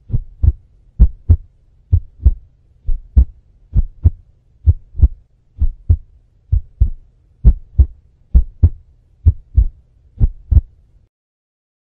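Heartbeat: paired low thumps, lub-dub, about once a second over a faint steady low hum, cutting off suddenly about a second before the end.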